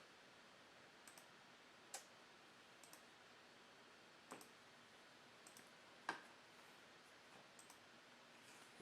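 Sparse single clicks of a computer mouse and keyboard, about one a second, with the loudest about six seconds in, against near silence.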